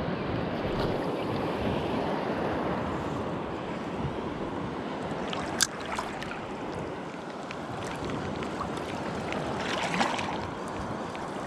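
Gentle surf washing and sloshing right at a camera held just above the water's surface, with wind on the microphone. A single sharp click comes a little past halfway, and a brief louder rush near the end.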